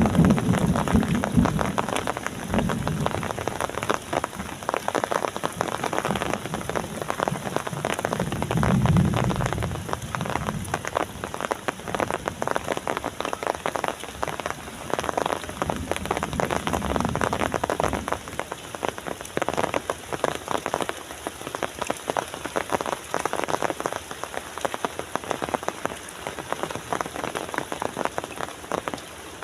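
Rain falling steadily, a dense patter of drops, with a few low rumbling swells in the first ten seconds.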